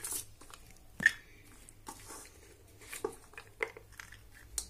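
Steel spoon scooping salad out of a stainless steel bowl into a plastic bowl: scattered clinks and scrapes of spoon against bowl, the sharpest about a second in.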